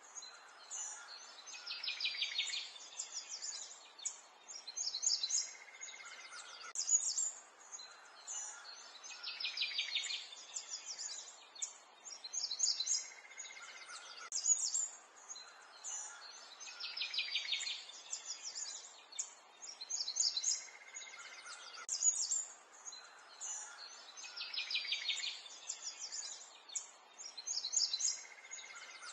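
Birdsong: several birds chirping and trilling over a soft outdoor hiss. The same stretch of song repeats about every eight seconds, like a looped nature recording.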